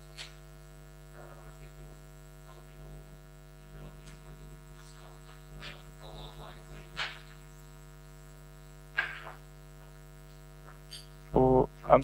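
Steady electrical mains hum through the microphone and sound system, with a faint, distant voice asking a question off the microphone. Near the end there is a brief, loud voiced sound close to the microphone.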